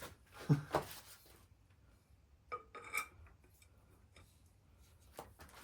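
Steel hand tools clinking and rattling as they are handled, with a few sharp clicks about half a second in and ringing metallic clinks about three seconds in.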